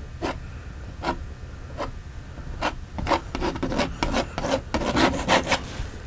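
Painting knife scraping dark oil paint onto a canvas in short strokes. A few spaced strokes come first, then quicker ones, several a second, from about halfway through.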